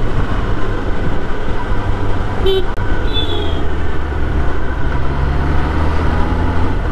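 Superbike engine running at low speed in traffic, with a single short horn beep about two and a half seconds in; the engine note grows stronger about five seconds in.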